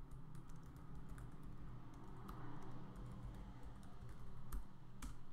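Computer keyboard typing: an irregular run of light key clicks, with two stronger clicks near the end.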